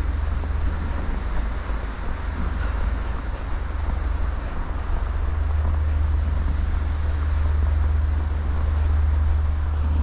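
Wind buffeting the microphone in a nor'easter snowstorm: a steady low rumble with a rushing hiss over it, a little louder in the second half.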